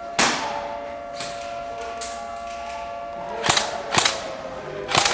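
Airsoft guns firing scattered single shots, sharp cracks a second or so apart, with a quick string of several shots near the end.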